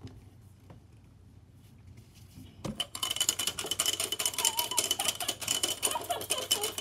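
Small plastic toy rattle being shaken hard and fast, a dense run of rapid clicking that starts about three seconds in after a quiet stretch with a few faint taps.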